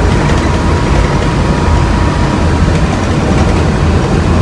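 Walt Disney World monorail running along its beam, heard from inside the car: a steady low rumble and ride noise, with a faint high whine that fades out about three seconds in.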